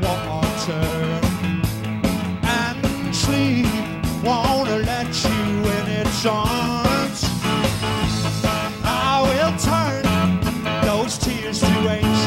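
Live rock band playing an up-tempo rock and roll number, with a steady drum beat under a lead line, heard straight from the mixing desk feed.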